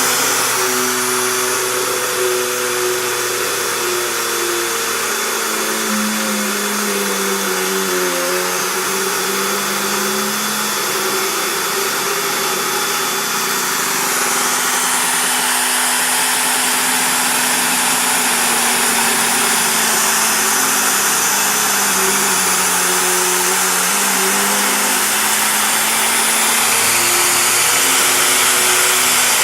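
Home-built CNC machine running: a loud, steady rushing whir, with lower motor tones that glide up and down in pitch as the axes move.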